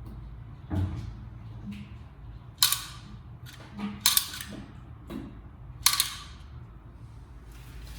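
A handful of sharp clacks or knocks, a second or two apart, over a low steady hum.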